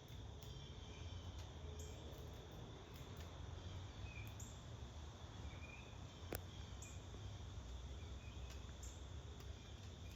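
Faint backyard ambience: insects trilling steadily, a few short bird chirps, and a low rumble underneath. One sharp click about six seconds in.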